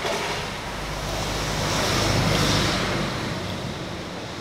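Rushing outdoor noise with a low rumble, swelling to its loudest about two seconds in and then easing off.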